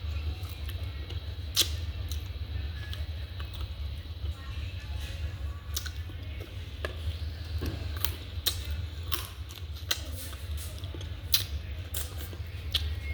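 Close-up eating sounds from a nasi padang meal: irregular clicks and wet smacks of chewing and handling food, over a steady low hum.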